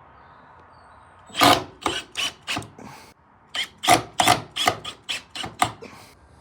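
A hand tool working on wood in two runs of quick, sharp strokes, about five and then about nine, roughly three a second.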